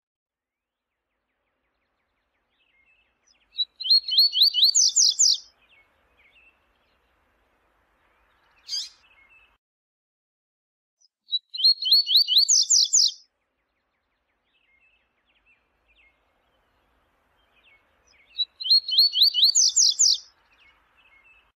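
Double-collared seedeater (coleiro) singing its 'viu-tiu' song: three short phrases of rapid, high, rising notes, each about two seconds long and about seven seconds apart, with a single short note between the first two.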